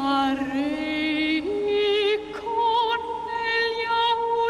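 Operatic soprano singing long held high notes with vibrato over a lower sustained accompanying line that steps up in pitch about a second and a half in.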